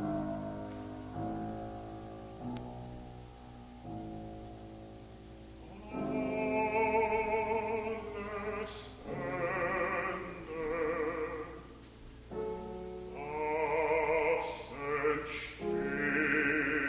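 Solo piano playing slow, separate chords, then from about six seconds in a bass voice sings a German art song with wide vibrato over the piano accompaniment, in phrases with short breaths between them.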